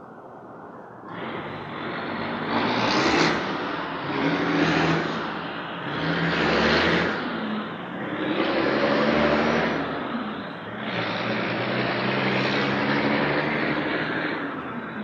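City street traffic: several motor vehicles passing one after another, their engine and tyre noise swelling and fading about five times, starting about a second in.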